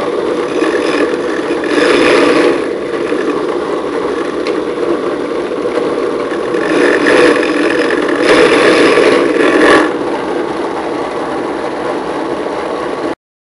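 A small motor running steadily, growing louder three times for a second or so, then cutting off abruptly near the end.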